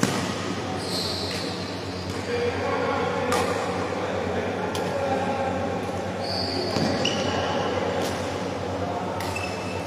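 Badminton rally: about half a dozen sharp racket strikes on the shuttlecock, a second or two apart, with several short high squeaks of shoes on the court floor. A steady low hum runs underneath.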